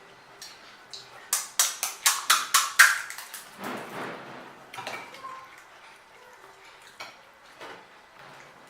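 Crisp pani puri shells crunching: a quick run of about seven sharp crunches, roughly four a second with the last one loudest, followed by softer crunching.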